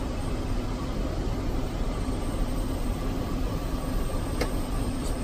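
Steady cabin noise of an airliner in flight, heard from the cockpit: an even rush of airflow and engines with a steady low hum, and a brief click about four seconds in.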